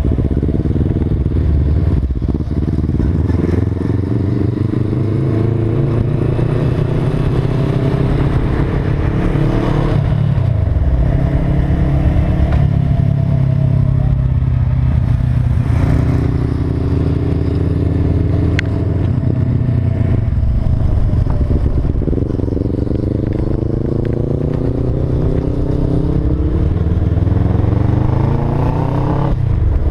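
Motorcycle engine heard from the rider's seat while riding, with wind rush. The engine note climbs slowly as the revs build, then drops back sharply several times, as at gear changes.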